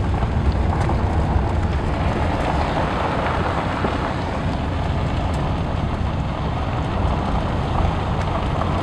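Steady road noise inside a moving car: the engine running and the tyres rolling over a rough forest road, an even low rumble throughout.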